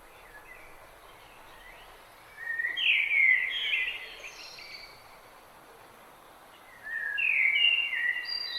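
A songbird singing two quick, warbled song phrases, each about two seconds long, the first a little over two seconds in and the second near the end, over a faint steady background hiss.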